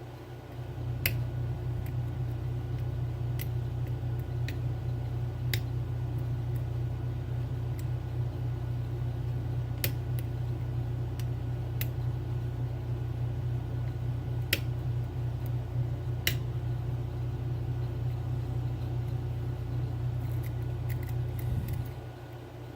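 Lock pick working the pins of a 7-pin Trioving oval cylinder under tension, giving about a dozen small, irregular clicks over a steady low hum that starts just after the beginning and stops near the end.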